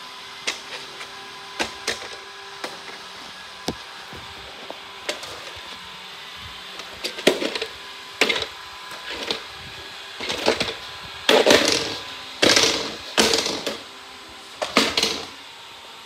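Robot floor cleaners humming faintly and steadily, with scattered light knocks and clicks. From about seven seconds in come several louder scraping, rustling bumps, the loudest in the middle of the run.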